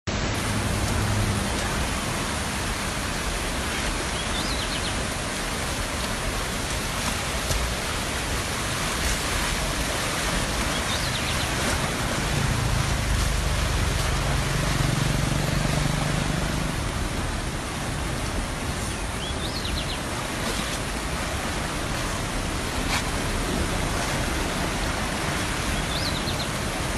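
Brown floodwater rushing in a swollen river, a steady, even rush of noise.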